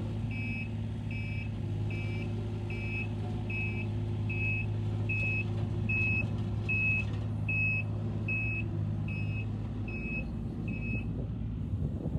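Takeuchi TB230 mini excavator's travel alarm beeping about twice a second over the machine's steady diesel engine; the beeps stop near the end.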